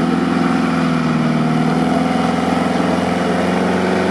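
Off-road vehicle's engine running steadily, with no revving.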